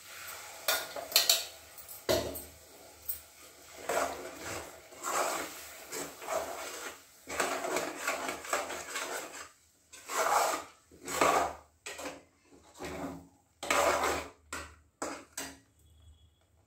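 Steel ladle scraping and stirring around a steel kadai of wet masala, in a run of repeated scraping strokes. A few sharp metal clinks come in the first second or two, and the stirring stops shortly before the end.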